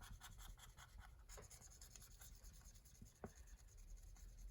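Faint scratching of a colouring tool scribbling on paper, quick rapid strokes for about the first second, then sparser strokes and a light tap about three seconds in.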